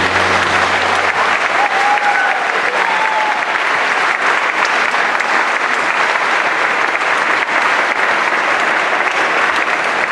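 Audience applauding steadily, a dense clapping that follows straight on from the song's final chord.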